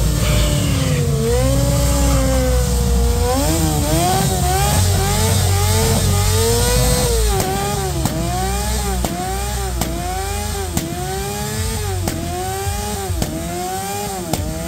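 Engine being revved. First comes a deep rumble with slow swings in pitch, then, from about halfway, quick repeated throttle blips, each rising and falling, about one and a half a second.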